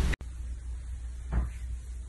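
Low room hum with a single soft thump about one and a half seconds in.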